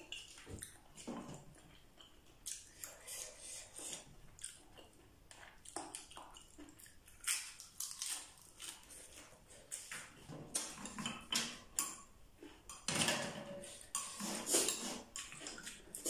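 Close-up eating sounds: crisp crunching and chewing of lettuce wrapped around a steamed scallop, in many short crackly bites, with light clinks of a metal spoon against the glass sauce bowl and the scallop shells.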